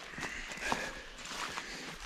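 Footsteps pushing through dense low spruce brush, an irregular tread of steps with branches brushing and twigs snapping.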